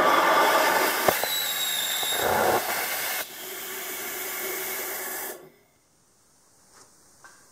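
Homemade ethanol and gaseous-oxygen rocket engine on its test stand: a loud rushing hiss from the engine, with one sharp click about a second in. The hiss drops to a quieter level about three seconds in and cuts off suddenly after about five and a half seconds.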